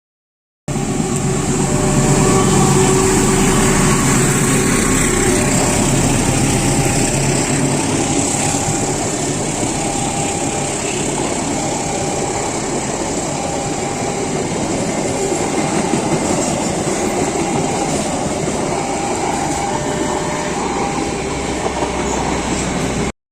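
A long-distance passenger train passing: a diesel locomotive's engine hum is heard for the first several seconds, then the coaches roll past with a steady rushing of wheels on rail.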